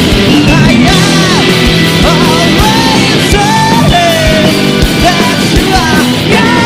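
A rock band playing live, with a steady kick-drum beat under a melodic line that bends up and down in pitch.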